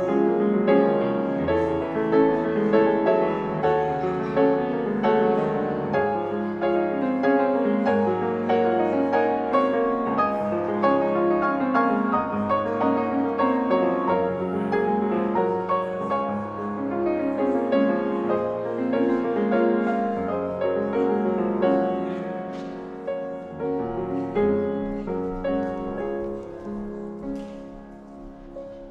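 Slow solo piano music, sustained chords and melody, dying away toward the end.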